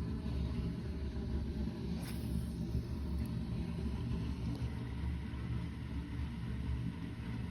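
An engine running steadily with a low, even sound that does not change.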